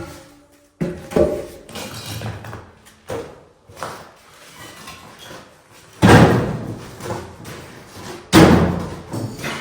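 Demolition of a wall of lightweight building blocks: a few smaller knocks, then two heavy crashes about six and eight and a half seconds in, each trailing off with rubble clatter.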